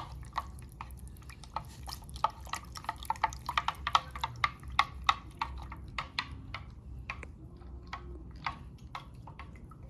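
Juice being stirred in a container, the stirrer clicking and tapping against the sides in quick, irregular strokes with some liquid sounds. The clicks are busiest in the middle and thin out over the last few seconds.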